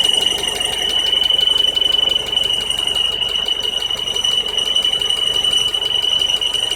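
Steady high-pitched metallic squeal from a 1999 Honda Civic's exhaust, where the downpipe and resonator pipe rub together at a joint missing its gasket as the engine vibrates. One unbroken tone with a fast even pulsing over it.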